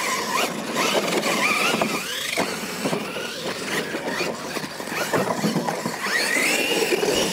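Losi LMT radio-controlled monster trucks running flat out side by side: their brushless electric motors whine, rising in pitch as they accelerate, once early on and again near the end, with knocks and tyre noise from the dirt track.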